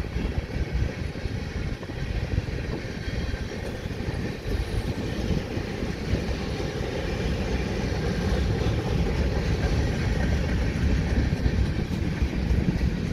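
Freight train's covered hopper cars rolling past: a steady rumble and clatter of steel wheels on the rails.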